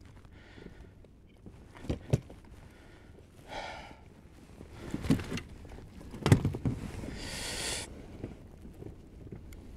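Knocks and bumps in a small boat, with a short high squeal about three and a half seconds in and a brief hiss near the end.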